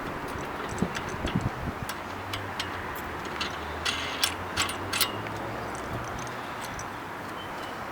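Scattered light metal clicks and clinks as hammock-stand hardware is handled and a bolt is fitted by hand, the clicks thickest a little past halfway, over a steady background hiss with a faint low hum in the middle.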